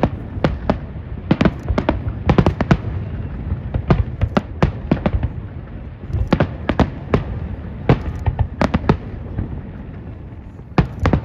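Fireworks going off: many sharp bangs at irregular intervals, some in quick clusters, over a steady low rumble, with a short lull about ten seconds in before more bangs.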